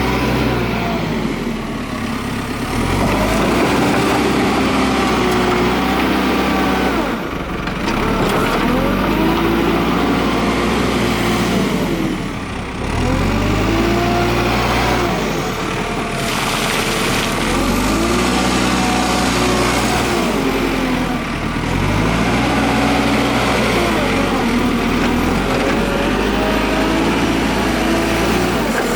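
JCB 3CX backhoe loader's diesel engine revving up and dropping back over and over, about every four seconds, as the machine works under load.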